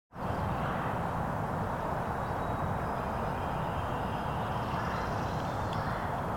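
Steady rumbling noise that starts abruptly and holds level, with a few faint thin high tones above it.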